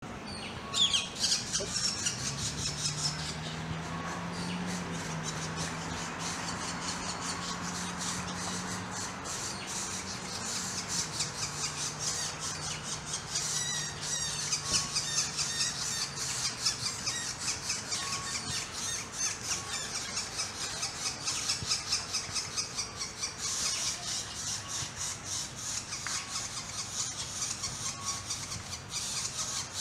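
Northern flicker nestlings at the nest hole giving their begging calls: a continuous high, rapidly pulsing squealing chatter, with a few louder bursts. A low steady hum sits underneath for the first half and then fades out.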